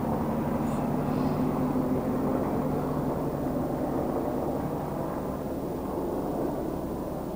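Helicopter flying overhead: a steady drone of engine and rotor with a low hum, gradually fading as it moves away.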